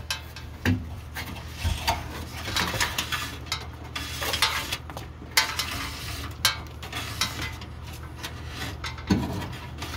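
Wires being pulled and fed through a car's rear body structure by hand: irregular scraping, rustling and light metallic clicks as the wire rubs and catches on the sheet metal, with a louder knock near the end.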